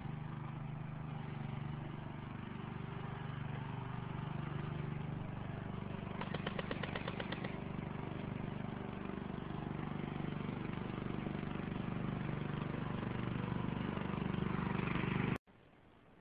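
A steady engine-like drone, with a rapid string of clicks for about a second around six seconds in; the drone cuts off abruptly near the end.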